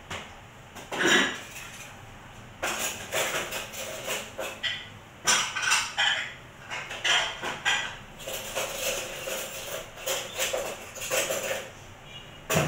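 Dishes and cutlery clattering and clinking as they are washed by hand, in irregular bursts.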